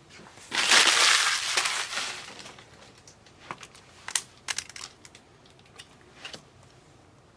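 Plastic card packaging crinkling loudly for about a second and a half, then a scatter of light clicks and taps as trading cards and holders are handled on the table.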